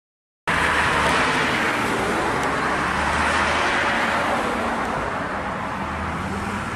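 1955 Chevrolet driving along a road, its engine running under tyre and road noise that eases off after a few seconds. The sound comes in about half a second in, after a silent gap.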